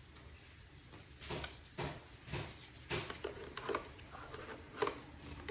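Light plastic clicks and knocks from handling a Roborock S8 robot vacuum as its parts are unclipped and taken out, half a dozen sharp taps spread over a few seconds.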